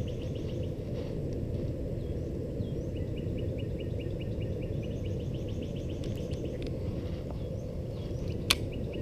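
Outdoor ambience: a steady low rumble with a bird calling in fast trains of short, repeated chirps. One sharp click sounds near the end.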